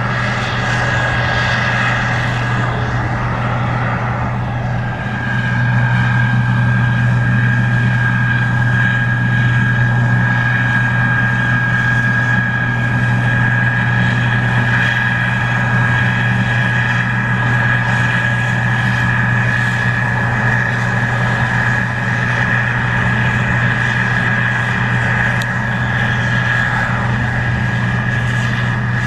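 Case IH 2388 Axial-Flow combine running while harvesting corn: a steady low engine drone with a constant high-pitched whine over it, growing louder about five seconds in and then holding steady.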